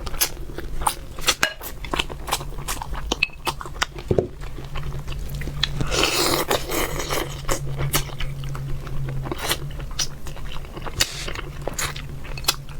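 Close-miked eating: biting, crunching and chewing, with many sharp crackling clicks.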